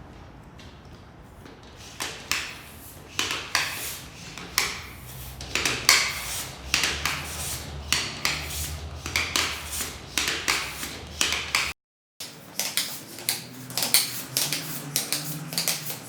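Bicycle tyre being inflated with a hand pump: an irregular series of short, rattly pump strokes, one or two a second, over a low hum.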